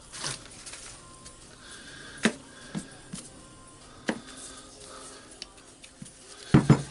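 Small metal parts of a rotary hammer's tool holder clicking and clinking as they are taken apart by hand, in scattered separate knocks, the loudest near the end.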